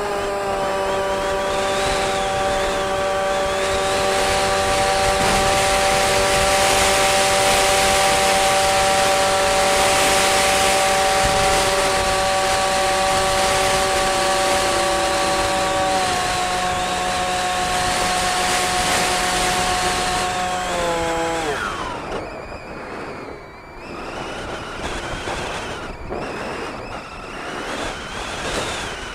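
Model aircraft's motor and propeller running with a steady pitched drone; about three-quarters of the way through the pitch slides down and the motor cuts. After that only wind gusting over the microphone is heard as the aircraft glides.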